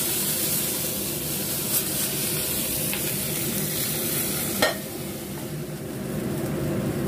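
Hot oil sizzling in a frying pan after frying fish, a steady crackling hiss. About four and a half seconds in there is one sharp knock, after which the sizzling is a little quieter.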